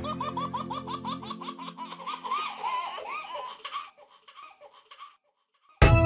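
Animated cartoon family laughing together, a rapid run of laughs that fades away over about four seconds, over the last held note of a children's song that stops about a second in. Lively music starts abruptly just before the end.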